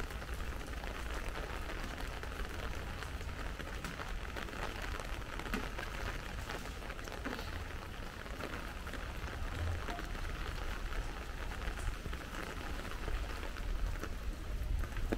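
Light rain falling: a steady hiss of many small drop ticks over a low rumble.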